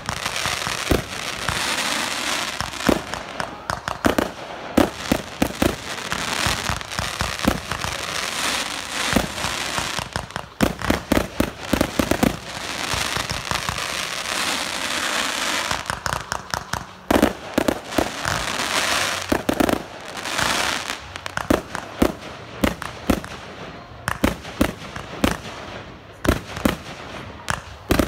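Aerial fireworks display: shells bursting in rapid, irregular succession, many sharp bangs close together, with stretches of dense crackle between them.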